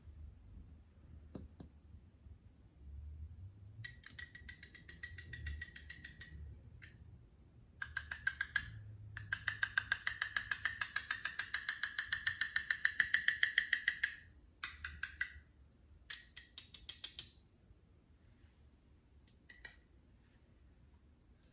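Greasy clear-glue Vaseline slime being squeezed and worked by hand, making fast runs of small clicking pops at about eight a second. It comes in several bursts, the longest lasting about five seconds.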